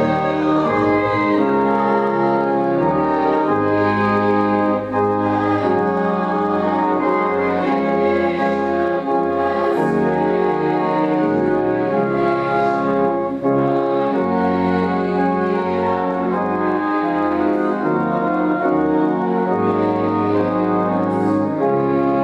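Church organ playing slow, sustained chords, with the bass notes changing every few seconds.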